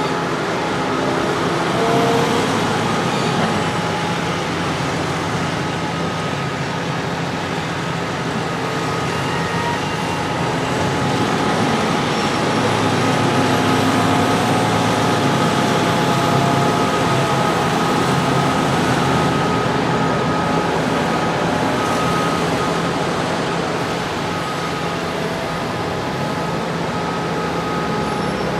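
Heavy farm machinery at work: large diesel tractor engines running steadily with a held whine, growing somewhat louder around the middle.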